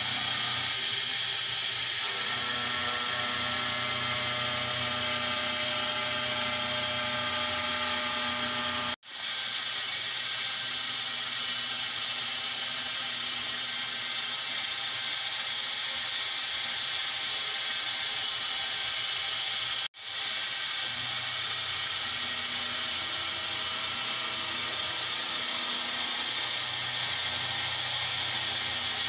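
CNC knee mill's end mill cutting the outer wall of a 2017 aluminium billet: a steady spindle and cutting whine with a strong hiss from the coolant-mist nozzle. It cuts out briefly twice, at about nine and twenty seconds, and comes straight back each time.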